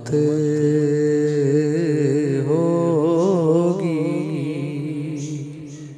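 A man's voice singing a naat, drawing out one long, wavering note at the end of a line. The note fades away over the last couple of seconds.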